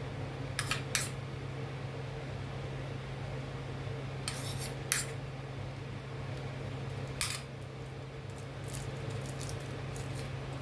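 Light clinks of tableware, a spoon against a soup bowl: two close together about half a second in, two more around four to five seconds, one at about seven seconds and a few fainter ticks near the end. A steady low hum runs underneath.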